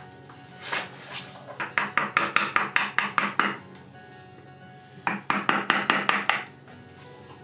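Narrow chisel cutting a small slot into a hardwood block: two quick runs of sharp clicks, about five a second, the second run shorter. Quiet background music plays underneath.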